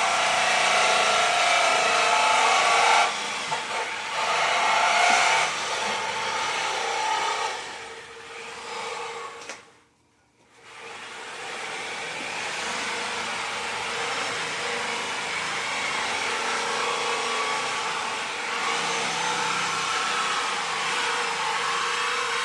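A steady whirring machine noise, with a faint steady hum running under it. It drops out to silence for about half a second around ten seconds in.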